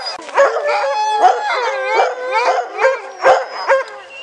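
A pack of sled dogs howling, yipping and barking all at once in many overlapping voices: the clamour of a team being harnessed for a run.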